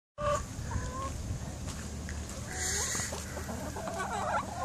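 Backyard hens clucking, with a few short calls in the first second and a quicker run of clucks building in the last second or so.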